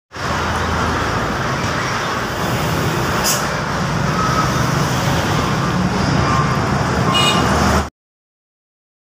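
Roadside traffic: a Mitsubishi Fuso diesel truck driving past with its engine running, then motorcycles and other traffic going by, with a short hiss about three seconds in. The sound cuts off abruptly about a second before the end.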